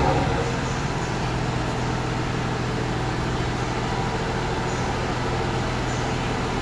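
JR East GV-E197 diesel-electric railcar running as it pulls slowly away from the platform, its engine giving a steady low hum at an even level.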